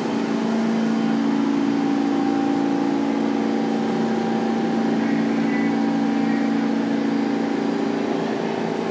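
Pullman-Standard R46 subway car standing at the platform, giving off a steady, unbroken hum.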